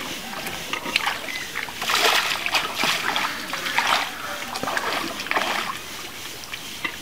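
Water splashing in a series of bursts roughly a second apart.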